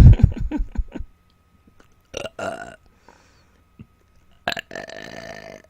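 A woman burping on command, bringing up swallowed air without having eaten or drunk: three belches. The first, at the start, is the loudest and lowest, and two shorter ones follow about two and four and a half seconds in.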